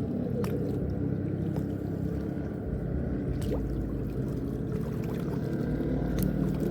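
Steady low rumble, engine-like, with a few faint clicks.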